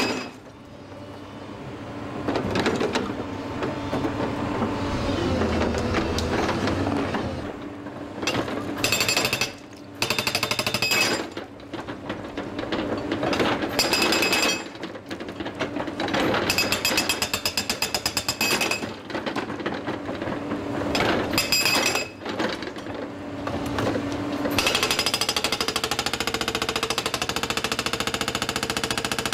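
Atlas Copco MB 1000 hydraulic breaker on an excavator hammering rock: long runs of rapid, evenly spaced blows that stop briefly and start again several times, with the carrier's engine running steadily underneath.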